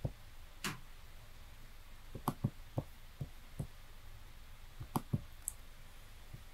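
Quiet room tone broken by about a dozen faint, irregular clicks and small knocks, bunched around two and a half seconds in and again around five seconds in.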